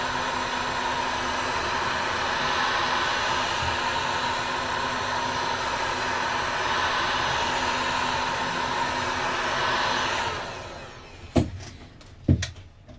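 Heat gun blowing steadily on the phone's back glass to loosen its glue, then switched off about ten seconds in, followed by two sharp knocks.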